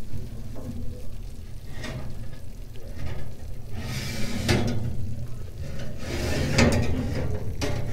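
Metal oven rack and glass casserole dish being handled in a wood-fired cookstove oven: scattered clinks and knocks as the rack is slid out and the dish is moved, over a low steady rumble.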